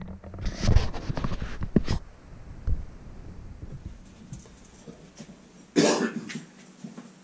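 Handling noise as a camera is moved and set down on a wooden workbench: a cluster of knocks and rubbing in the first two seconds. About six seconds in, a man coughs once, sharply; this is the loudest sound.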